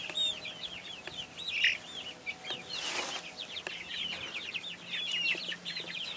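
A flock of young chicks, four to six weeks old, peeping continuously: many short, high peeps overlapping one another.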